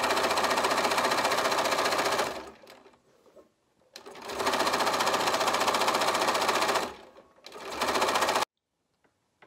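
Bernina Aurora 440 QE sewing machine stitching coils of fabric rope together, running in three spells: about two seconds, a pause, about two and a half seconds, then a short burst that stops abruptly near the end.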